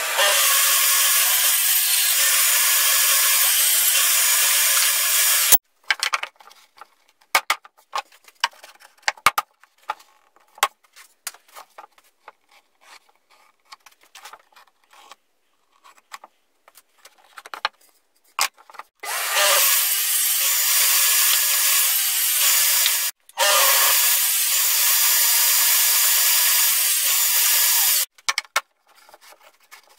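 A power tool runs at full speed in two stretches: about five seconds at the start, then again from about nineteen seconds in for roughly nine seconds with one short break. In between come scattered clicks and knocks of plywood parts being handled.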